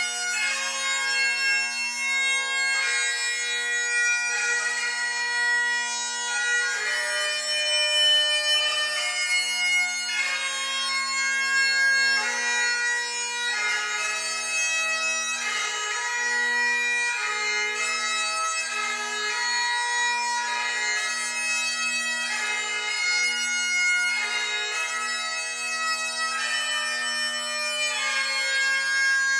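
Great Highland bagpipe playing a flowing melody on the chanter over its steady, unbroken drones.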